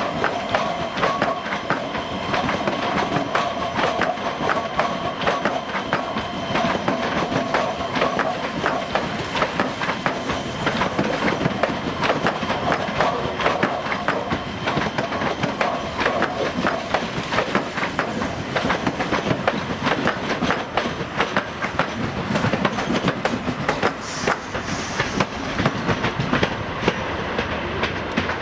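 EG2Tv "Ivolga 2.0" electric multiple unit departing, its wheels clattering steadily over rail joints and switches as the cars roll past. A high steady whine sits over the clatter for the first several seconds, then fades.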